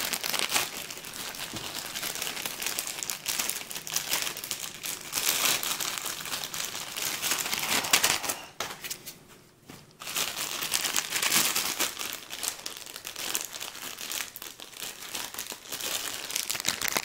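Clear plastic bags of cables crinkling and rustling as they are handled and opened, with a short lull about halfway through.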